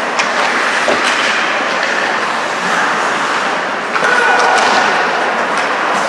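Ice hockey rink ambience during play: a steady wash of skates scraping the ice with players' voices echoing in the arena, broken by a few sharp clacks of sticks and puck.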